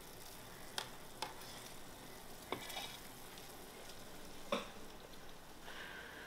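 Metal spoon stirring syrup in a small stainless-steel saucepan on the stove, clinking sharply against the pot a few times, the loudest about four and a half seconds in, over a faint steady sizzle of the hot syrup.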